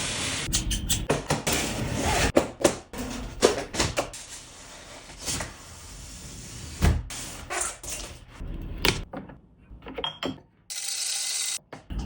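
Packaging being handled during an unboxing: rustling with a series of sharp knocks and thumps, easing off with short pauses near the end.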